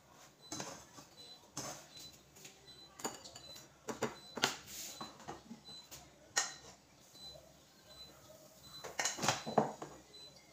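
Irregular clinks and scrapes of a metal ladle against a bowl as pancake batter is stirred and scooped, with a cluster of louder knocks near the end.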